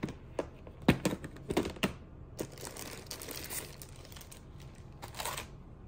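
Clear plastic storage-caddy drawer clicking and knocking as it is pulled open and handled, a few sharp clicks in the first two seconds, then a rustle and crinkle of plastic wrapping as the booklets and packaged tools inside are lifted out.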